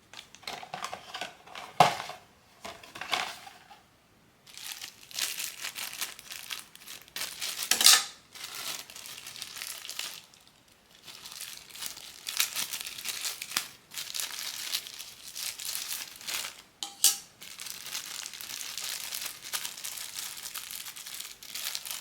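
Crinkly blind-box packaging crumpling and crackling as it is handled and opened, in irregular bursts with short pauses, with a couple of sharper knocks about two and eight seconds in.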